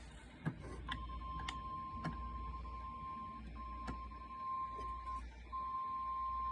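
NOAA Weather Radio warning alarm tone, a single steady beep of about 1050 Hz, announcing a severe thunderstorm warning. It starts about a second in and drops out briefly twice, over a low hum with a few sharp clicks.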